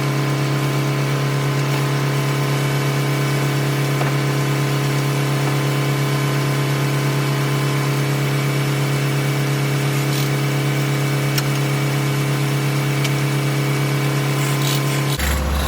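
Tractor engine running steadily, powering a circular sawmill with a constant, even hum. Just before the end the sound changes abruptly and drops lower.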